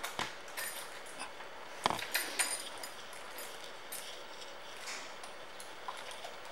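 Faint room tone with a few scattered light clicks and knocks, the strongest about two seconds in.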